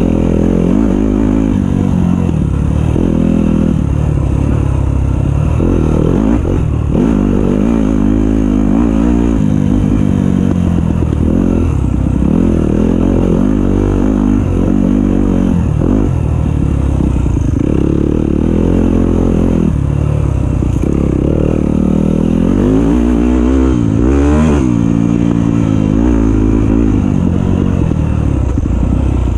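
Dirt bike engine revving up and down continually as the throttle is opened and closed through the turns, loud and close throughout.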